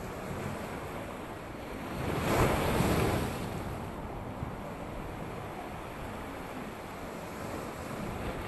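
Ocean surf breaking and washing over the boulders of a rocky shoreline, with one wave crashing louder about two seconds in.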